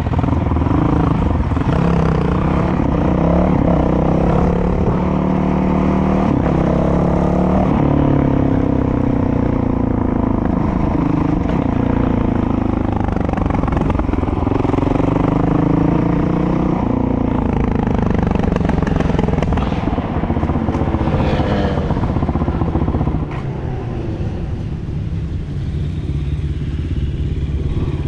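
Motorcycle engine revving as it rides, its pitch climbing and dropping again and again in steps as it works through the gears, with wind rumble on the microphone. The engine note eases off and drops in level a little past the three-quarter mark.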